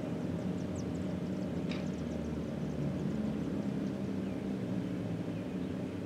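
ACA SuperBanshee outdoor warning siren at the tail of its wind-down after a test blast, its rotor coasting with a low, steady drone.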